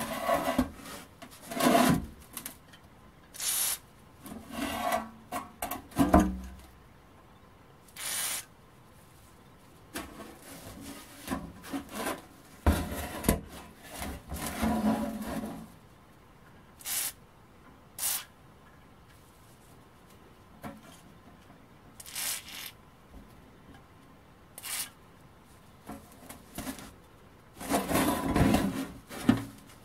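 Corroded metal machine-gun ammunition box being handled with gloved hands: irregular scraping and rubbing of metal on metal, with a few short sharp knocks and one heavier thump about six seconds in.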